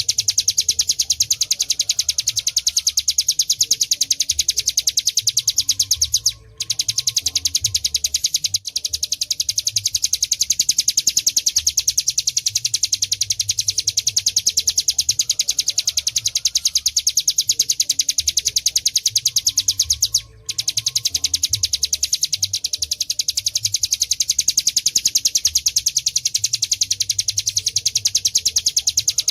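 A ciplek gunung (prinia) singing its 'ngebren' song: a continuous, very rapid, high-pitched rattling trill that breaks off for a moment twice.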